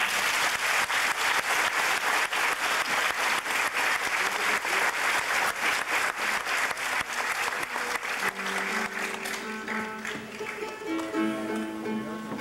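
Audience applause breaking out at the end of a piece and dying away after about eight seconds, as a Paraguayan harp starts up again with plucked notes.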